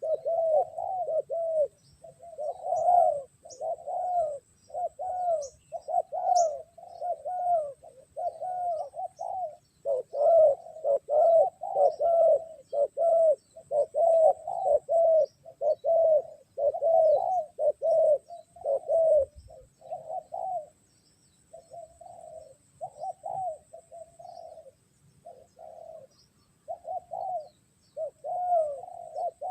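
Spotted doves cooing in a steady run of short, rounded coo notes, about two a second, thinning out for a few seconds past the middle before picking up again.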